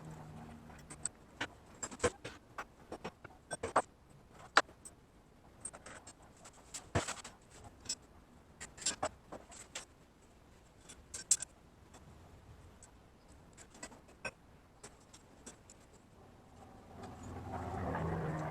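Scattered sharp metallic clicks and knocks as steel parts and tools are handled on a workbench, then a low hum that swells near the end.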